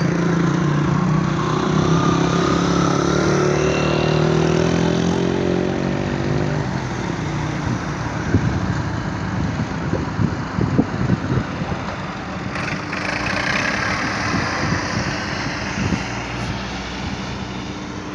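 Road vehicles passing on a hairpin bend: a steady pitched engine drone for the first six seconds or so, then lower, uneven rumbling and thumps as a farm tractor and a car go by around the middle.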